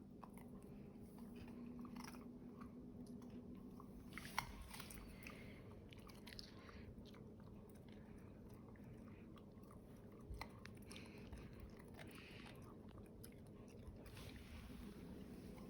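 A dog crunching and chewing raw carrot in irregular crisp bites, with a sharper crunch about four seconds in and another about ten seconds in.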